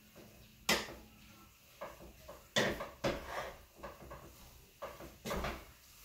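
Wooden spoon stirring spaghetti in a pan, knocking against the pan a few times.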